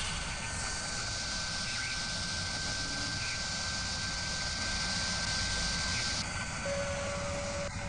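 Sound effect of a CNC milling spindle drilling into metal: a steady high whine over a hissing noise, with a second, lower tone coming in near the end.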